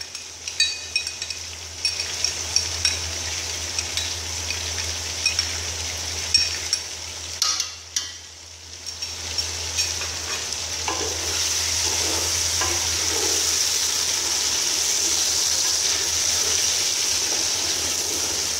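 Chicken, ginger-garlic paste and green chillies sizzling in hot oil in a large metal pot, with a wooden spoon clicking and scraping against the pot as it is stir-fried. The sizzle dips briefly about eight seconds in, then comes back steadier and a little louder.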